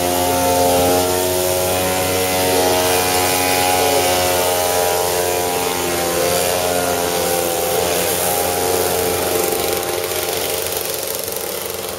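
Small engine of a motorised toilet cart running at high revs with a steady pitch, growing fainter near the end as the cart drives off.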